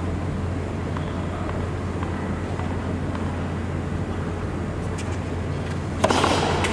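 Hushed tennis-court ambience with a steady low hum and faint crowd murmur while a serve is awaited. Near the end come sharp racquet-on-ball hits of the serve and return, with the noise level jumping as the rally starts.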